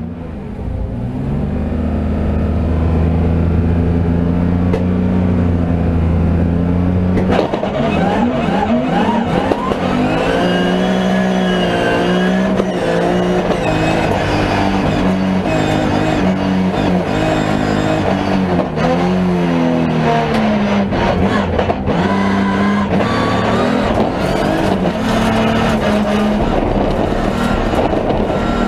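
Rallycross car engine heard from inside the cabin, held at steady high revs on the start line, then about seven seconds in the car launches and the engine note rises and falls repeatedly through gear changes and corners.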